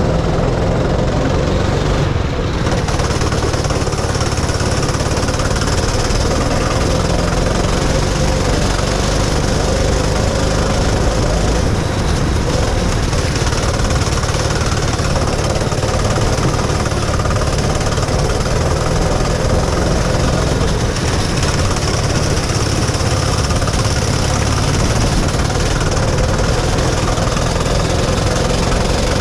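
Go-kart engine running hard at speed on track, heard from a helmet-mounted camera: a loud, steady, rattling drone.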